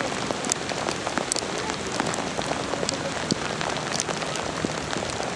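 Steady rain falling, a constant hiss with irregular sharp drop ticks close by.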